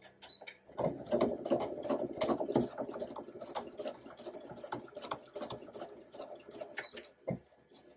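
Brother Pacesetter sewing machine running, free-motion stitching through a sheet of plastic laid on a quilt. It starts about a second in with a rapid run of needle strokes that varies in speed, then stops near the end after a last short burst.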